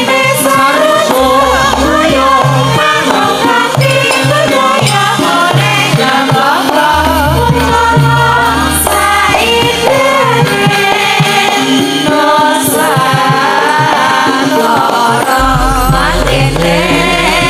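Javanese gamelan ensemble playing while female sinden singers sing together into microphones. Deep sustained low notes ring out beneath them about a second in, around seven seconds in, and again near the end.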